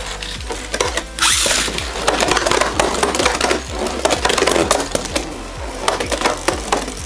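Beyblade Burst tops Cho-Z Achilles and Super Hyperion in a plastic stadium. About a second in there is a short rip and scrape as the second top is launched and lands. Then the two spinning tops clack and grind against each other and the stadium floor in rapid clicks, with electronic music underneath.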